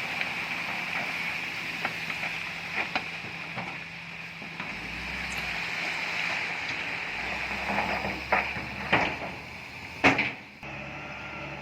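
Bulldozer engine running steadily at work, with scattered knocks and clanks, the loudest about ten seconds in. The sound cuts off abruptly just after it.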